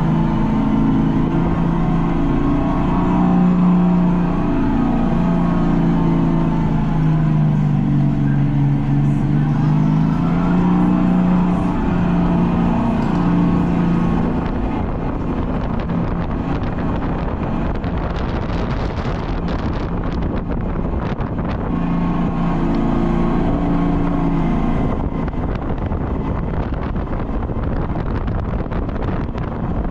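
Electric go-kart driving around the track, its motor tone rising and falling with speed, over rushing noise. From about halfway on, wind buffets the microphone.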